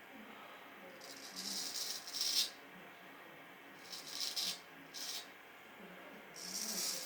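Vintage W.J. Guy straight razor scraping through lathered heavy stubble, four rasping strokes: a long one about a second in, two shorter ones past the middle and another near the end.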